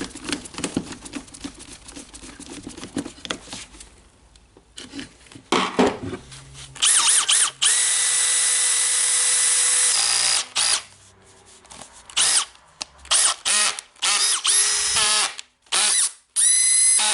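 Makita DDF484 brushless cordless drill being test-run with its new chuck. It is triggered in short bursts, with one steady run of about two seconds near the middle, and each burst spins up with a rising whine. Before the runs there are light clicks and knocks of hand work on the drill.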